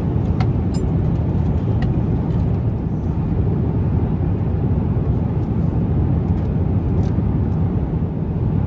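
Steady low cabin noise inside an Airbus A350-900 airliner in flight: the rush of airflow and its Rolls-Royce Trent XWB engines, with a few faint clicks.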